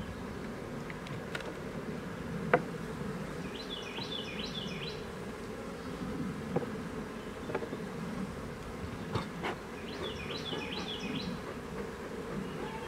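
Honeybees buzzing in a steady hum around an open hive during a nuc installation, with a few sharp wooden knocks as the hive frames and cover are handled.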